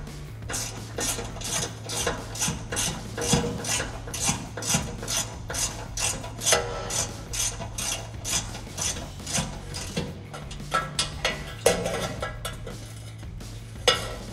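Hand socket ratchet clicking in quick back-and-forth strokes, about two or three a second, while a heat-shield fastener is loosened, with fewer and more spaced strokes near the end. A steady low hum runs underneath.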